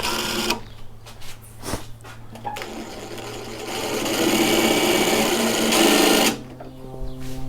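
Cordless impact driver spinning a drill bit to bore packed mud out of a mower wheel's pin hole. There is a brief burst at the start, then a longer run of about three and a half seconds that ends just after six seconds in.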